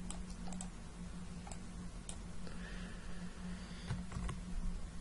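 Faint, scattered clicks of a computer mouse, about seven in five seconds, over a steady low hum.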